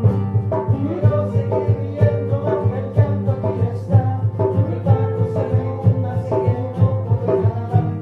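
Music: plucked-string instrumental over a steady bass beat.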